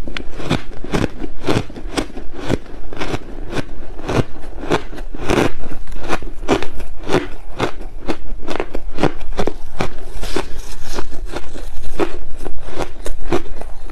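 Frozen ice mixed with passion fruit being chewed close to a collar microphone: a loud, unbroken run of sharp crunches, several a second.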